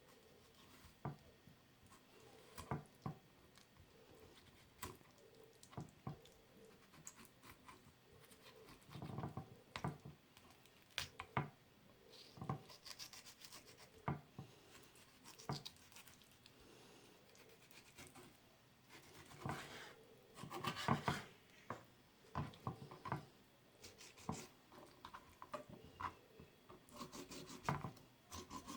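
Knife working through a raw chicken leg on a cutting board, deboning it: scattered soft scrapes and rubs with small knocks, busiest about two-thirds of the way in.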